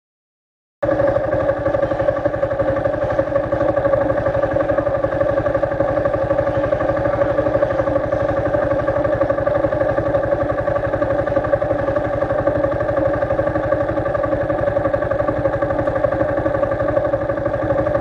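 Suzuki GD110HU motorcycle's single-cylinder four-stroke engine idling steadily, with a fast even firing beat under a steady whine. The sound cuts in abruptly about a second in.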